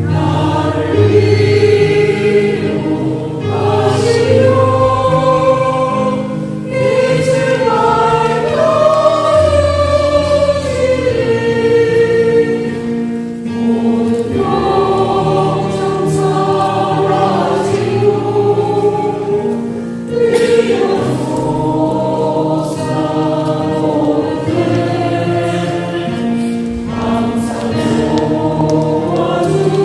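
Choir singing a Catholic hymn, with long held notes over steady low notes.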